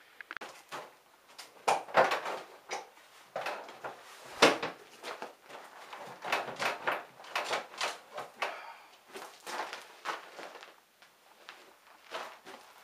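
Irregular clicks, clinks and clunks of metal parts and hand tools being handled while taking apart an ATV's rear end, with two louder knocks about two and four and a half seconds in.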